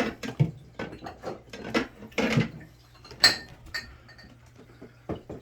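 Light clicks, knocks and clinks of small items being handled in a mini fridge's freezer compartment, with one sharper click about three seconds in.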